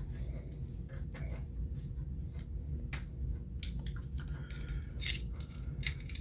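Light clicks and scrapes of a polymer pistol grip frame and its small parts being handled and fitted by hand, as the takedown lever is worked into place, over a low steady hum.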